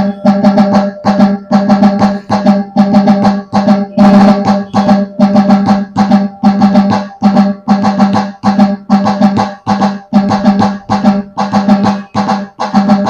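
Puneri tasha pattern played alone on a Roland HandSonic electronic hand-percussion pad: a fast, steady, repeating rhythm of sharp snare-like tasha strokes.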